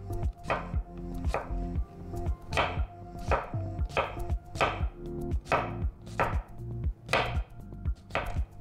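Chef's knife slicing through a fresh cucumber on a wooden cutting board: about ten crisp, crunchy cuts, a little more than one a second, each ending as the blade meets the board.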